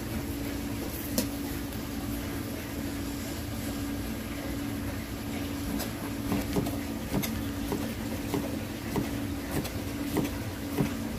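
Knife slicing a raw white-fish fillet into sashimi on a plastic cutting board. The blade knocks lightly on the board with each cut, about one to two a second through the second half, over a steady low hum.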